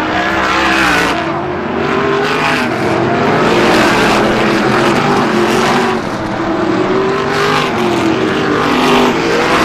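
Several race car engines running at speed together, their pitch rising and falling.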